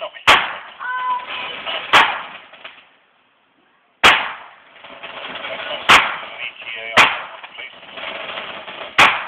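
Home fireworks going off: six sharp bangs at uneven intervals, with a hissing haze between them.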